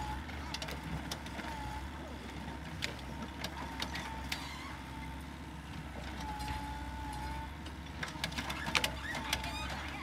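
Construction-site noise: a steady low engine rumble with scattered clicks and knocks of work, and a faint whine that comes and goes several times.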